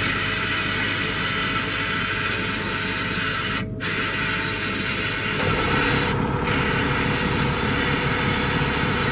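Blast gun in an abrasive-blasting cabinet hissing steadily as it strips old paint from a cast bell part, with a momentary break a little before four seconds in.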